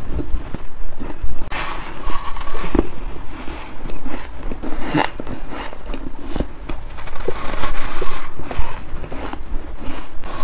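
Close-miked dry, squeaky crunching of powdery freezer frost being bitten and chewed, in irregular clusters of crunches.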